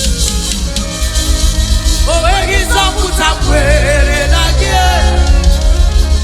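Live gospel praise music: a band with heavy bass and drum kit, with a sung vocal line coming in about two seconds in.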